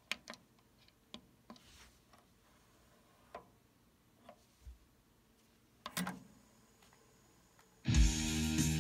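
Scattered mechanical clicks and clunks from a Yamaha KX-1200U cassette deck as its transport buttons are pressed, the loudest pair about six seconds in. Guitar music starts suddenly near the end.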